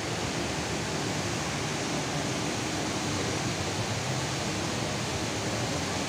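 The Rain Vortex, a tall indoor waterfall, pouring steadily into its basin: a constant, even rush of falling water.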